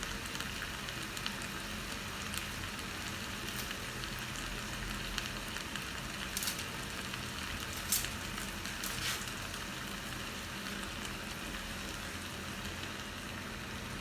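Vegetables frying in hot vegetable oil in a pan, a steady sizzling hiss with a few sharp clicks, about six and a half, eight and nine seconds in.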